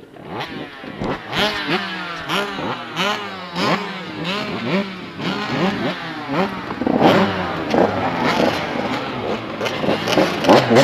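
Several 85cc two-stroke dirt bike engines revving, the throttle blipped over and over so the pitch sweeps up about twice a second. The revving overlaps and gets louder and busier about seven seconds in.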